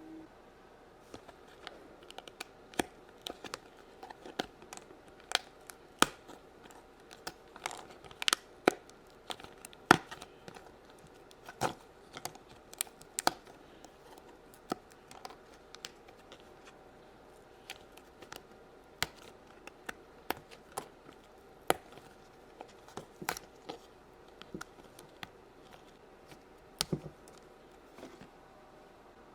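Irregular sharp clicks and taps of clay and small plastic pieces being handled and pressed on a tabletop, a few a second and uneven in loudness.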